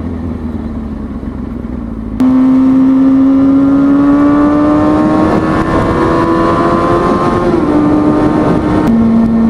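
Kawasaki ZX-6R 636 inline-four motorcycle engine under way. After about two seconds of lower rumble it comes in loud, its pitch rising slowly as the bike pulls. Near the end it drops abruptly to a lower steady note, as at a gear change. Wind rumble on the microphone lies underneath.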